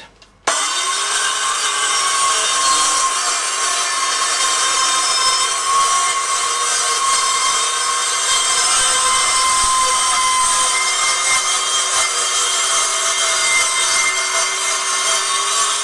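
Handheld circular saw starting up and cutting steadily through an OSB panel along a guide jig, holding an even pitch for the whole pass. The blade is a little dull, which the owner says leaves a lot of tearout in the cut.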